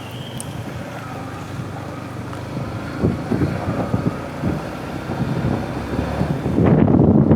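Yamaha MT-15's single-cylinder engine running as the motorcycle is ridden, under wind noise on the microphone. Irregular buffeting starts about three seconds in and is loudest near the end.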